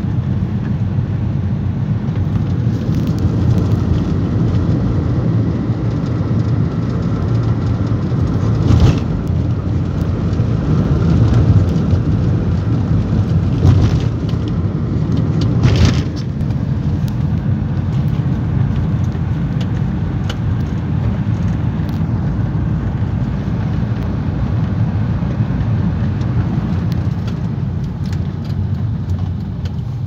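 Road and engine noise of a moving car heard from inside the cabin, a steady low rumble, with two brief louder swells of noise about nine and sixteen seconds in.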